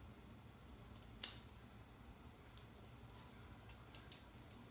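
Near silence, broken by one sharp click about a second in and a few faint small ticks and clicks later on.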